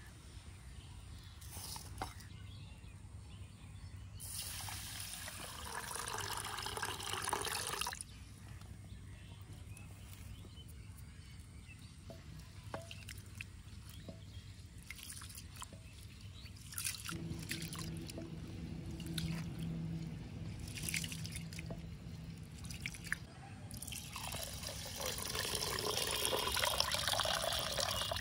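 Water pouring in two spells of a few seconds each, one near the start and one near the end, with dripping and small clicks in between.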